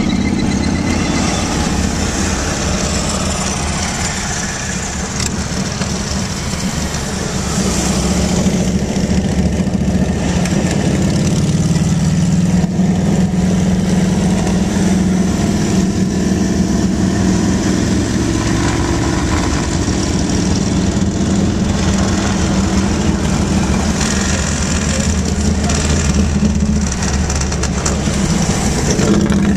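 Motorcycle engines and road noise heard from inside a car following a large pack of cruiser motorcycles at highway speed: a steady engine drone that grows a little louder about seven or eight seconds in.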